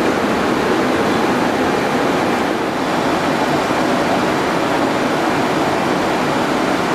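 Steady rushing noise inside a Boeing 737-800 cockpit in level flight at about 270 knots. It is an even wash of airflow and machinery noise with no distinct events.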